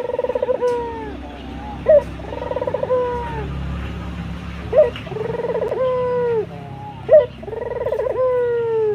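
Ringneck dove (puter) cooing repeatedly: about four calls, each a short sharp note followed by a long rolling coo that falls away at the end.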